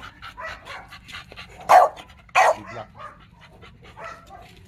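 American bully dog barking twice in quick succession, about halfway through, with short quick panting around the barks.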